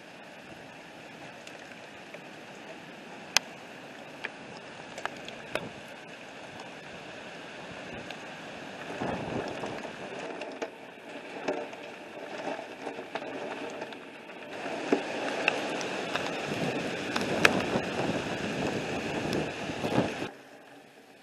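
Storm rain and wind, growing heavier about nine seconds in and heavier still from about fifteen seconds, with scattered sharp clicks of hailstones striking. It cuts off abruptly near the end.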